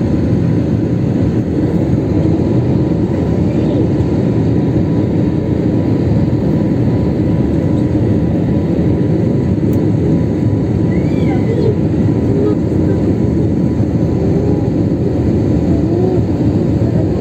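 Steady cabin noise of a jet airliner in flight, heard from inside the cabin by the wing: an even, deep rush of engine and airflow noise that does not change.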